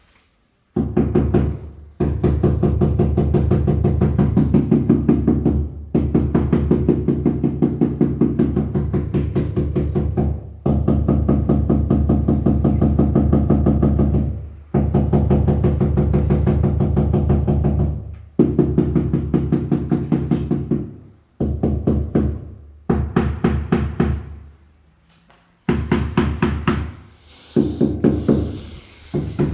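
Power hammer chiselling into a masonry wall to break it up: very rapid hammering in bursts of about four seconds with brief pauses between them, and shorter bursts near the end.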